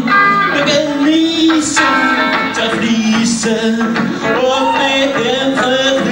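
A man singing a song live into a microphone while strumming an electric guitar.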